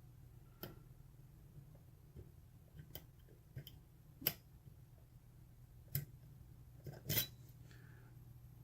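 Faint, scattered metallic clicks and ticks of a pick working the pin stacks of an ISEO euro cylinder under light tension, about six spread irregularly over several seconds. A low steady hum sits underneath.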